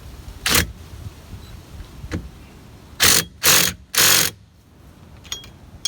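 Impact gun running down the bolts of a rear wheel hub assembly in short bursts: one brief burst about half a second in, then three bursts in quick succession about three seconds in.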